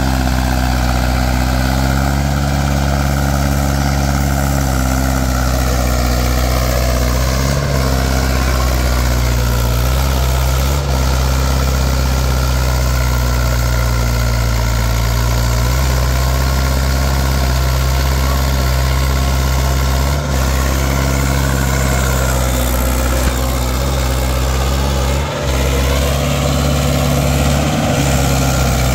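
Mahindra 575 DI XP Plus tractor's four-cylinder diesel engine pulling a cultivator under heavy load. It runs steadily, its pitch sagging slightly a couple of times and recovering: the engine holds its revs under the load without bogging down.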